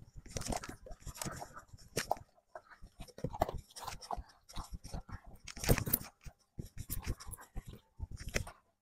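A Dalmatian eating dry kibble from a plastic slow-feeder bowl: irregular crunching and clicking of kibble and teeth against the bowl, with one louder clatter a little past halfway.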